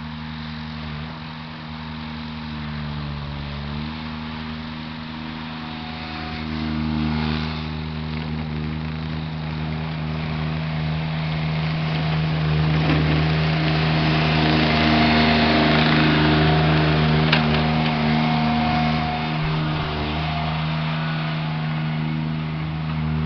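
Mini skid steer engine running steadily, with a small shift in pitch about three and a half seconds in and a louder stretch in the middle.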